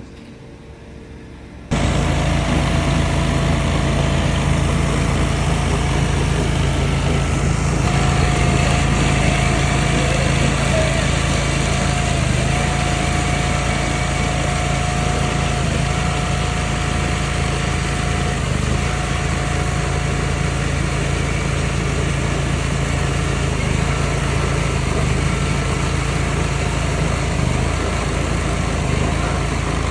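A small engine running steadily at constant speed, starting suddenly about two seconds in.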